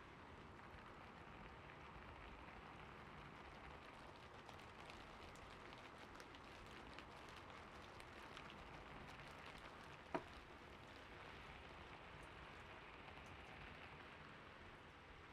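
Faint, steady sound of gentle rain pattering, with one sharp click about ten seconds in.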